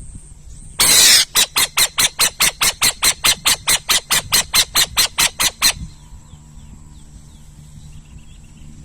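An owl's harsh call: one long rasping screech, then a rapid run of about twenty short harsh notes at about four a second, which stops abruptly.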